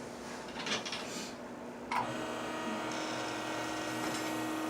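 Soft rustling, then about two seconds in a click as a small electric motor switches on and runs with a steady, even hum.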